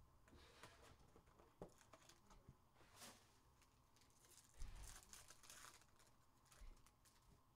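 Faint crinkling and tearing of a foil trading-card pack wrapper being torn open by hand, with light clicks of handling and a soft bump about halfway through.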